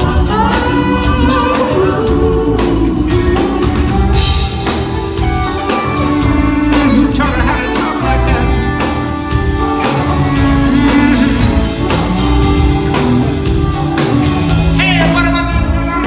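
Live band playing a song with drums keeping a steady beat, electric guitar and keyboards, and a singer's voice, heard from the audience in a concert hall.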